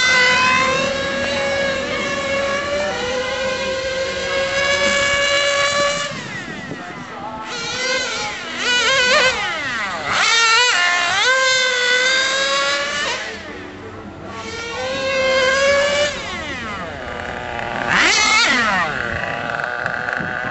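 Small nitro (glow-fuel) engine of a 1:10 Serpent 720 RC touring car running at high revs with a high-pitched whine, its pitch climbing and dropping with the throttle and sweeping down each time the car passes, several times over.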